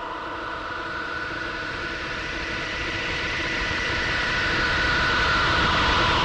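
Instrumental swell in a progressive rock song: a wash of noise with a few held tones, growing steadily louder.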